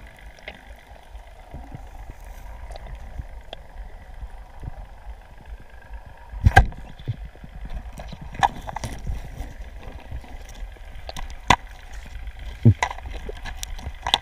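Underwater sound picked up by an action camera's housing: a low rumble of water against the housing, with scattered sharp clicks and knocks. The loudest knock comes about six and a half seconds in.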